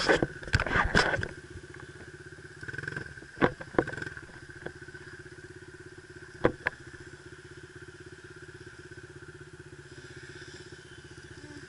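Dirt bike engine idling steadily with an even pulse, and a few sharp knocks in the first seven seconds.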